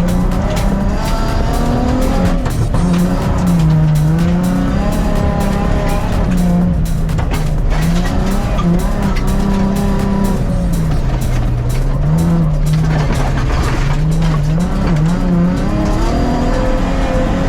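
Nissan 350Z drift car's engine revving hard, its pitch climbing and dropping repeatedly through the gears, over the noise of tyres on gravel.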